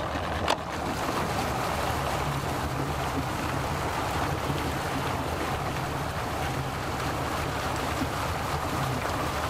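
Outboard motor on a small aluminium fishing boat running steadily at low speed as the boat pulls away from the dock, with water stirring behind it. A single click about half a second in.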